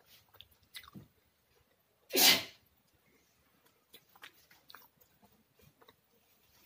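Faint wet clicks of fingers mixing rice and dal on a steel plate, with quiet chewing. About two seconds in, one loud half-second mouth noise.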